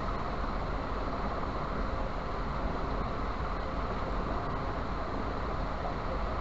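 Steady background noise, an even hiss with a low rumble underneath, with no distinct events.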